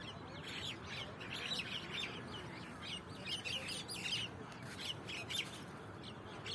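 Several birds chirping, a continual chatter of short overlapping calls, over a steady low background rumble.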